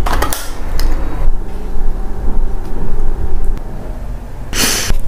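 Low rumbling handling noise from a large foil-free burrito and a plastic sauce cup being moved about close to the microphone. A short puff of breath comes near the end.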